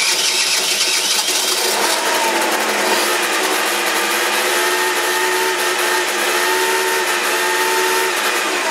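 Water-cooled two-stroke engine of a 2006 Peugeot Speedfight scooter, just started on the button and running steadily, a loud racket. The owner diagnoses worn engine bearings.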